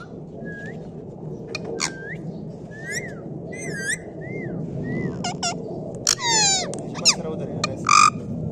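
Pet parrot calling: a string of short whistles and chirps that glide up and down, then a long falling squawk about six seconds in and a loud harsh squawk near the end.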